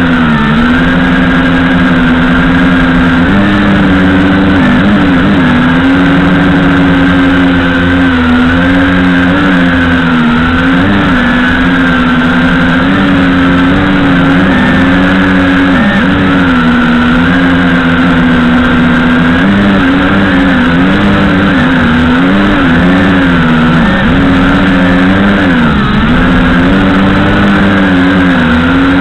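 JJRC H8D quadcopter's motors and propellers buzzing in flight, the pitch wavering up and down as the motors speed up and slow down.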